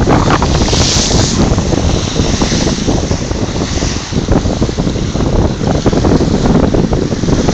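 Strong wind buffeting the phone's microphone over rough sea waves breaking and splashing against a sea wall, with a loud hissing splash of spray about a second in.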